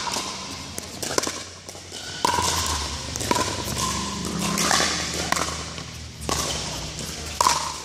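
Pickleball paddles hitting a hollow plastic ball back and forth in a doubles rally: sharp pocks about once a second, each with a short ring, echoing in a large indoor hall.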